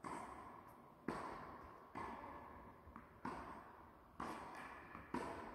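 Tennis balls being hit with a racket and bouncing on a hard court: sharp pops about once a second, each followed by a long echo from a large indoor hall.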